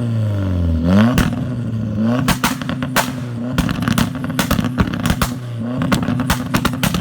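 Turbocharged Toyota 1NZ-FE four-cylinder engine running and being revved. Its pitch dips and climbs again about a second in, then holds fairly steady under a rapid string of sharp exhaust pops and cracks.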